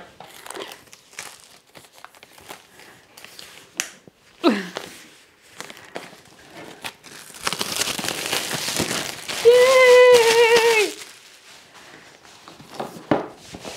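Clear plastic wrap crinkling and tearing as it is peeled off a MacBook Pro box. Scattered crackles give way to a louder, denser stretch of rustling a little past the middle.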